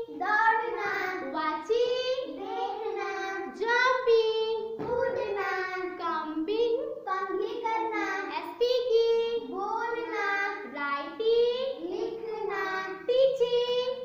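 A young girl singing a list of action words in a sing-song chant, short phrases repeating about once a second.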